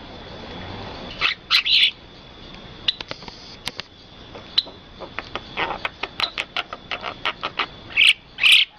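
Birds chirping in quick short notes, with two louder harsh calls about a second and a half in and again near the end, over a steady high tone.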